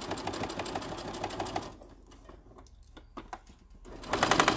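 Domestic electric sewing machine stitching a seam, a rapid even run of needle strokes that stops a little under two seconds in. A few light clicks in the pause, then the machine starts stitching again near the end, louder.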